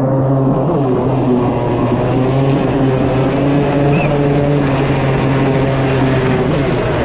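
Gas-powered jetsurf board's two-stroke engine running steadily at speed, with a brief dip in pitch about a second in, over the rush of water.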